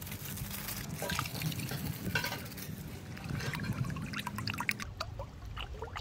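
Water pouring and trickling, with bubbly gurgles over a steady low rumble that stops near the end.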